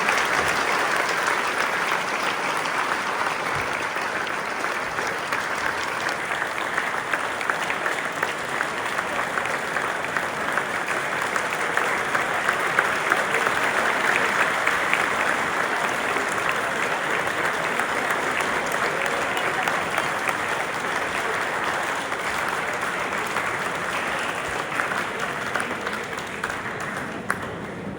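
Large audience clapping continuously, dying away near the end.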